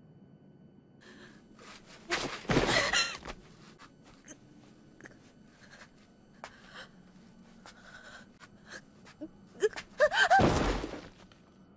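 A young woman's strained gasp over a heavy thud about two seconds in, then small scuffs and ticks as she pushes herself up from the ground. Near the end comes a rising cry of effort with another deep thump as she leaps.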